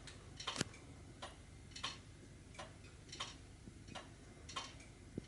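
Faint, steady ticking of a Gledhill-Brook time recorder's Empire fusee clock movement, about three ticks every two seconds.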